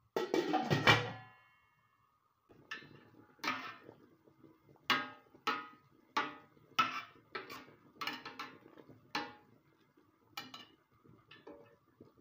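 A metal clatter with a brief ringing as the steel cooking pot is handled, then a wooden spoon knocking against the side of the steel pot over and over, at about one or two knocks a second, while stirring the boiling broth.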